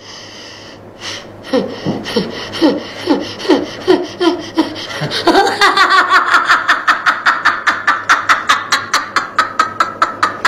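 A man laughing hard: first a string of falling "ha" bursts, then from about five seconds in a fast, high-pitched, even cackle of about five pulses a second.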